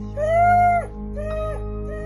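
Background music: a slow melody of held notes that dip at their ends, over a steady low chord.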